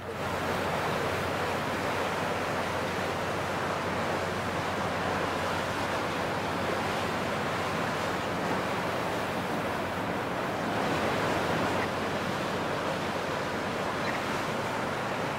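Steady rushing of wind and water heard from the deck of a river cruise ship under way, with a faint low steady hum underneath.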